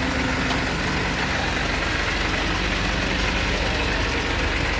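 Diesel engine of a TATA six-wheeler truck idling steadily.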